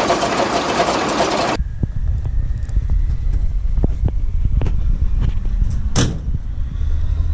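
ZIL-157K truck's straight-six petrol engine running, heard close up in the engine bay, cut off sharply about one and a half seconds in. It gives way to a low rumble with scattered light clicks and one sharp click about six seconds in.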